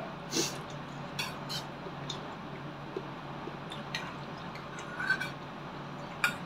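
A metal spoon clicks and scrapes against a stainless-steel bowl several times, with mouth sounds of chewing, over a steady low hum.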